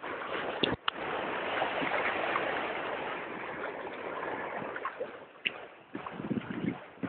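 Water splashing and churning as German shorthaired pointers swim. It builds about a second in, is loudest for the next couple of seconds, then fades, with a few short knocks.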